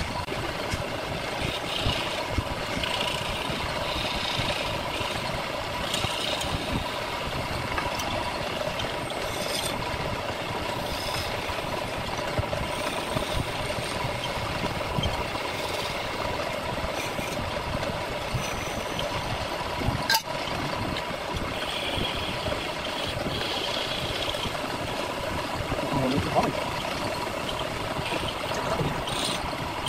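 Electric wood lathe running steadily with a steady hum, while a hand-held turning chisel cuts and scrapes the spinning wood, the cutting hiss coming and going in patches. One sharp click about two-thirds of the way through.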